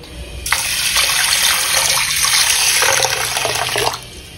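A stream of water pouring into a stainless steel bowl of whole horse gram, starting about half a second in and stopping shortly before the end.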